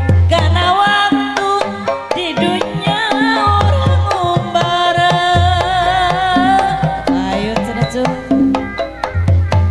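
Live Sundanese jaipongan music: kendang hand drums play quick sharp strokes and deep booming notes over gamelan, with a wavering sustained melody line above.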